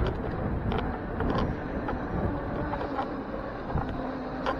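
Bicycle rolling along a city bike lane: steady road rumble and wind on the microphone, with a few sharp clicks and rattles from the bike and camera mount over bumps.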